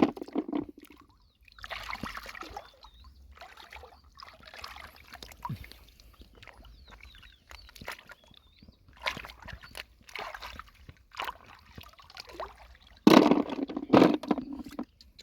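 Shallow lake water sloshing and splashing in short, irregular bursts as hands search through it for snails and clams, with a louder splash near the end.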